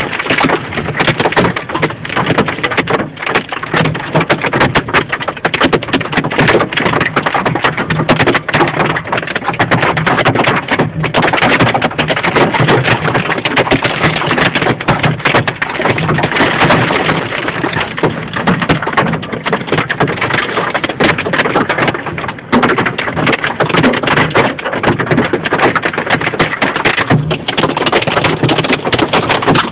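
Golf-ball-size hail hitting the van's roof and windshield, heard from inside the van: a dense, continuous clatter of sharp hits, many every second, over steady heavy rain.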